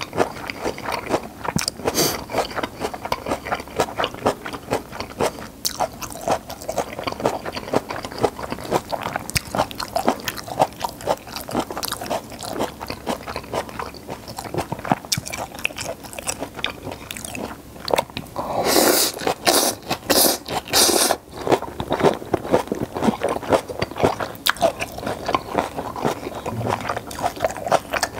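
Close-miked eating of pepper japchae and steamed flower buns: chewing and biting with many quick wet clicks and smacks. A louder, noisier stretch lasts a couple of seconds about two-thirds of the way through.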